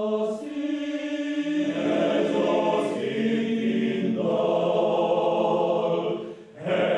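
A choir singing a slow song in long held notes. A phrase ends about six and a half seconds in, and the next phrase begins just after.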